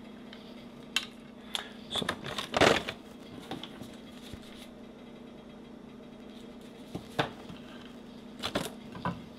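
Handling of a plastic bag of chocolate chips: scattered rustles and small clicks as the bag crinkles and chips drop onto a wooden cutting board, the loudest rustle about two and a half seconds in. A low steady hum runs underneath.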